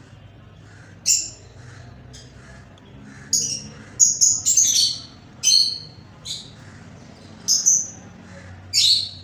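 Small birds chirping: a dozen or so short, sharp high chirps in irregular groups, thickest about four to five seconds in, over a faint steady hum.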